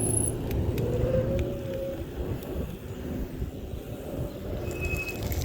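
Electric scooter running, with a low rumble throughout. A motor whine rises slightly about a second in and fades out around two seconds.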